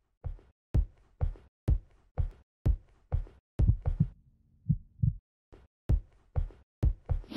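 Heartbeat sound effect: a run of deep thumps about two a second, some falling into close pairs, with a short low hum under them about four seconds in and a brighter hit at the end.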